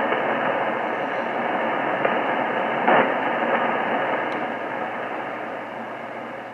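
JRC NRD-545 shortwave receiver's speaker putting out steady static hiss on 13.270 MHz, cut to a narrow voice-width band. About three seconds in comes a brief louder burst of hash, the kind of recurring pulse the listener thinks comes from an electric fence.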